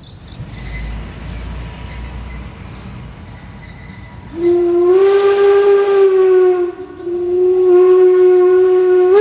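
Narrow-gauge steam locomotive's whistle blown in two long, steady blasts with a short break between them, sounded as the train nears a road level crossing. A low rumble comes before the whistle.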